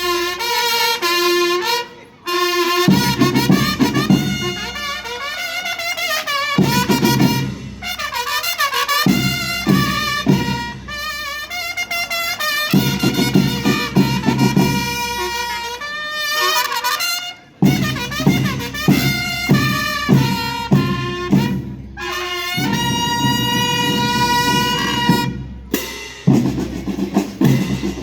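School rhythm band playing: a brass melody led by trumpets over marching drums, with two short breaks, about two seconds in and again midway.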